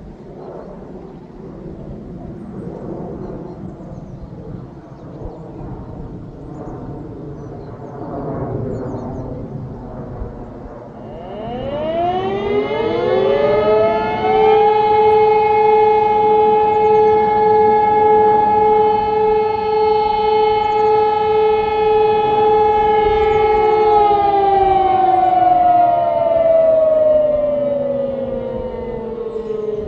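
Several German civil-defence sirens, E57 electromechanical and an Ergatec EWS4 electronic siren, sounding the 'Feueralarm' test signal. For the first ten seconds or so there is only a low, uneven rumble with faint fading siren tones. About twelve seconds in the sirens wind up in a rising wail, hold a steady, loud two-pitched tone for about ten seconds, then wind down with falling pitch near the end.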